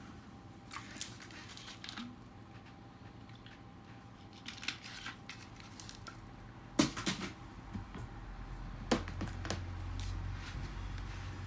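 Small objects and tools handled on a workbench: scattered light clicks and taps, the sharpest about seven seconds in, with a low hum coming up in the last few seconds.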